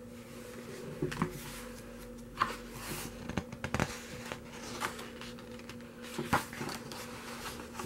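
Pages of a photo book being turned and handled: a string of short paper rustles and light taps, over a faint steady hum.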